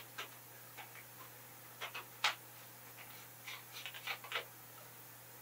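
Faint, scattered small clicks and taps of parts being handled as an aluminum cap with a flexible plastic nozzle is screwed by hand onto the tube of a cold air gun, with a sharper click a little after two seconds in and a run of light ticks near the end.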